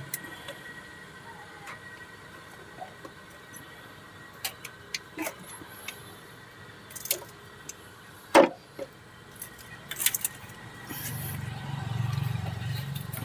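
Hands working at rubber hoses and plastic connectors in a car engine bay: scattered small clicks, taps and metallic clinks, with one sharper knock about eight seconds in and a few more about two seconds later. A low hum comes up in the background near the end.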